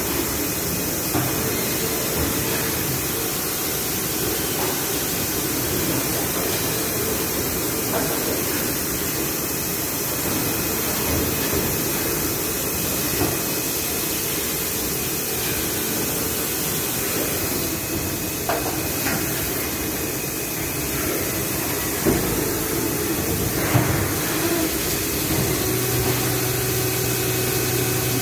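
NPC 400H injection moulding machine and its Sepro take-out robot running: a steady machine hum and hiss, broken by a few sharp clunks and clicks, with a low steady tone coming in near the end.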